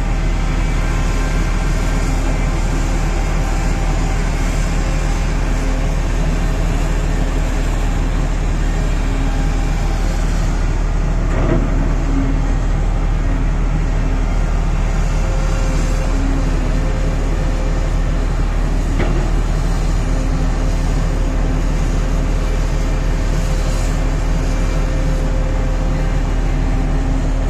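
Volvo EC950E crawler excavator's diesel engine running steadily under load as it digs and swings, with a pitched drone that rises and falls in step with the work. A sharp knock comes about 11 seconds in and another about 19 seconds in.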